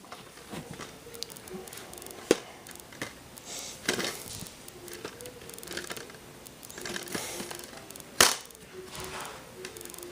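Handling of a DVD case and its plastic wrapping: irregular crinkling and rustling with a few sharp clicks, the loudest about two, four and eight seconds in.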